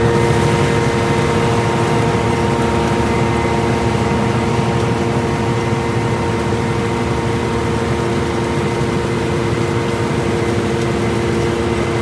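Oxbo self-propelled pea combine running as it harvests: a loud, steady machine drone with several held whining tones over it.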